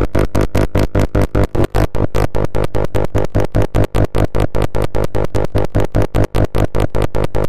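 Synthesized electronic sound effect: a loud tone made of several pitches, chopped into rapid, even pulses at about eight a second.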